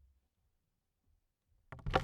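Near silence, then near the end soil starts to fall onto a wooden coffin lid: a sudden dense patter of grains and clods over dull low thuds.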